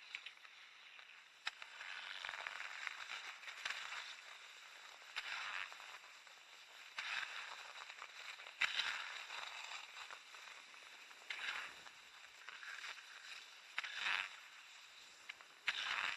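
Cross-country skis sliding in freshly groomed classic tracks, a swish of snow that swells with each stride every two seconds or so.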